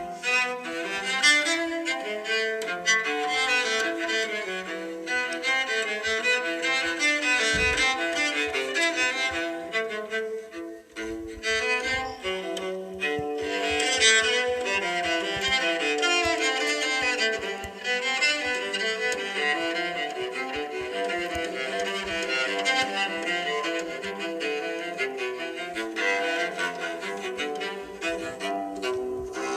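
An LG G6 stock ringtone playing: a melody on bowed strings, violin and cello, with many quick notes.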